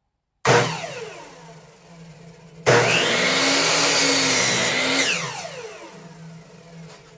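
Electric miter saw. It is switched on briefly about half a second in and winds down, then runs steadily for about two seconds while cutting a 45-degree miter on a wooden frame piece. It spins down with falling pitch after the trigger is released.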